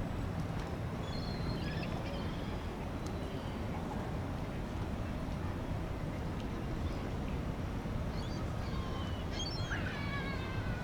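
Birds calling now and then in short high chirps, the busiest burst near the end, over a steady low hum.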